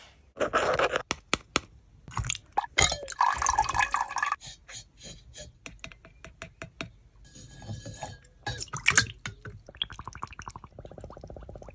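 Liquid pouring and dripping mixed with many sharp clicks and taps on glass, ending in a fast buzzing rattle.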